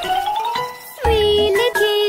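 Background children's music: a bright tune that glides upward in its first second, with a low beat coming in about a second in.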